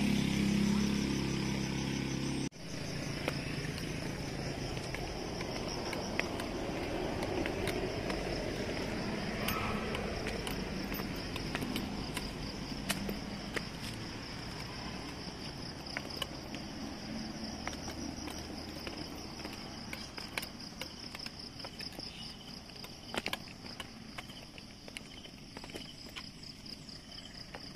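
Steady high-pitched insect chorus with a fast pulsing trill, over a faint outdoor background with scattered small clicks. For the first couple of seconds a louder low droning hum plays beneath it and cuts off suddenly.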